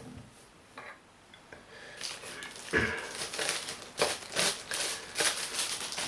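Packaging being handled: a run of irregular crinkling and rustling that starts about two seconds in.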